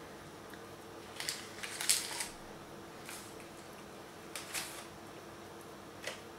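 Paper towel and baking parchment rustling in a few short bursts as soft pastry rolls are lifted, blotted and set on a lined tray, over a faint steady hum.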